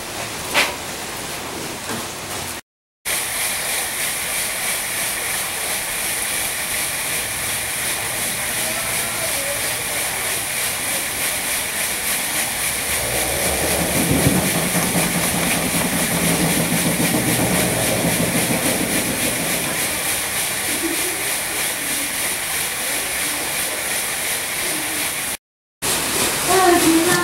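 Steady rushing hiss of water running over a mill water wheel, broken by two brief cuts to silence.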